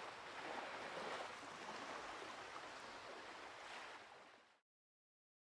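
Faint steady rushing noise of running water, fading out about four seconds in and ending in silence.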